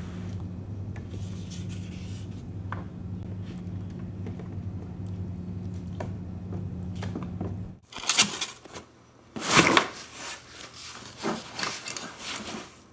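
A steady low hum for about eight seconds, which stops abruptly. Then a run of irregular knocks and scrapes, louder than the hum, as the kayak gear and its wheeled cart are handled.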